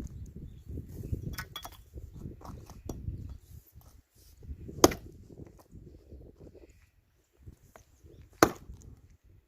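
Axe splitting firewood: two sharp, loud chopping strikes about three and a half seconds apart. A low rumbling noise with small knocks fills the first few seconds.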